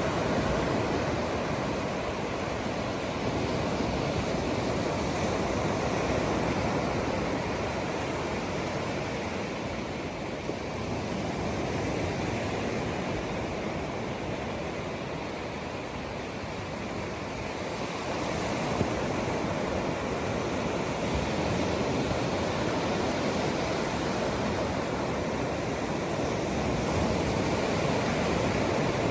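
Surf washing on a beach: a steady rushing that slowly swells and eases, with one brief knock a little past the middle.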